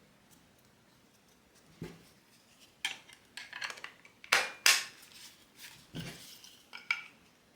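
Plastic parts of a Baseus A1 handheld car vacuum being fitted back together: a series of sharp clicks and knocks, the loudest pair about four and a half seconds in.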